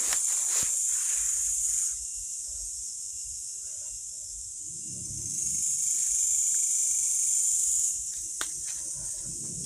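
Night insects, crickets or the like, shrilling in a high steady buzz. The buzz comes in two spells: one for about the first two seconds and a longer one from about five to eight seconds in. A few faint clicks and some low rustling sit beneath it.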